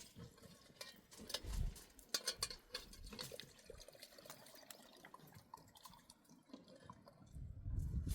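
Water trickling and splashing, with irregular drips and small splashes.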